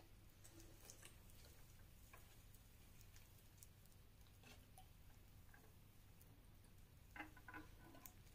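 Near silence, with faint, irregular little ticks of water from a plastic watering can dripping onto potting soil in a seed tray, and a few louder clicks near the end.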